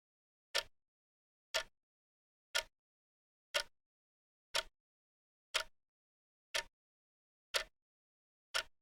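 Clock ticking: short, sharp ticks evenly spaced at one per second, with silence between them.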